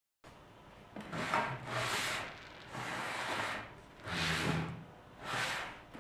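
Repeated rubbing strokes on wood, about one a second, like a hand tool working over an ash chair's surface.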